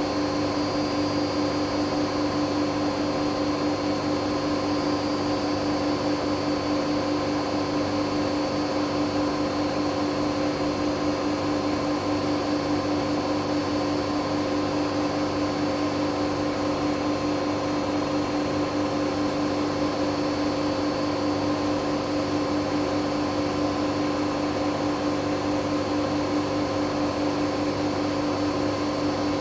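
Hoover Dynamic Next washing machine spinning at a steady high speed on a 1600 rpm spin-only cycle: an even motor whine with a rush of air and drum noise, holding constant without speeding up or slowing down.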